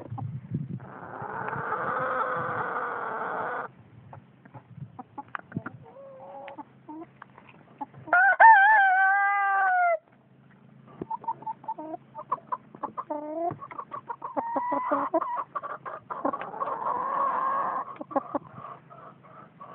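Chickens clucking while roosters crow. The loudest is a clear crow about eight seconds in, lasting some two seconds and falling in pitch at its end. Longer, harsher crows come near the start and again around fifteen seconds.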